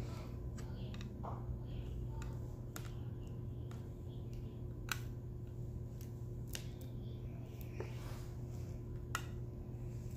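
Scattered small sharp clicks and taps of a diamond-painting drill pen picking resin drills out of a plastic tray and pressing them onto the canvas, at an uneven pace over a steady low hum.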